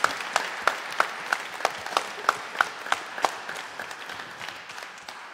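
Audience applauding, with a few loud close claps about three a second standing out. The applause thins and dies away over the last two seconds.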